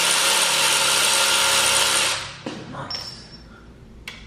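Cordless electric ratchet running steadily, spinning out a bolt from the engine's mounting bracket; the motor cuts off about two seconds in, and a few light clicks and rattles of the socket and bolt follow.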